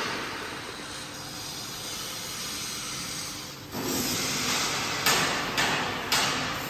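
A steady hiss with no strikes for about three and a half seconds. Then the sound gets louder, and from about five seconds in sharp hammer blows come roughly two a second.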